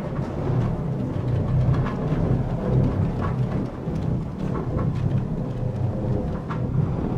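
Sound effect of an alien machine in a factory: a continuous low, rumbling drone with a faint steady hum above it, dotted with short irregular clicks and hisses.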